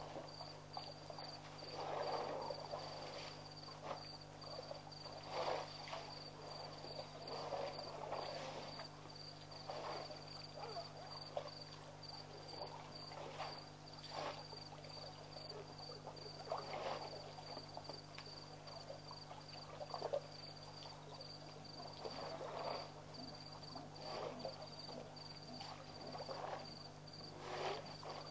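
Crickets chirping steadily in a fast, high-pitched pulsing trill over a steady low hum, with irregular soft noises every one to three seconds.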